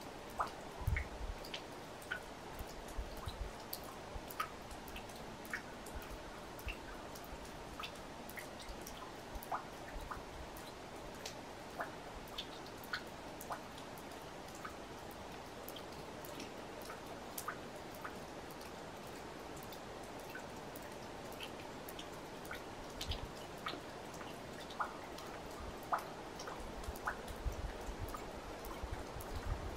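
Irregular light drips and ticks of water over a faint steady background, with a low rumble near the start and again near the end.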